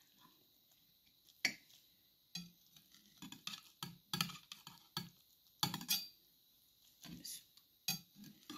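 Kitchen knife cutting through a Spanish omelette, its blade knocking and scraping against the plate in a string of sharp clicks, some close together, about a dozen in all.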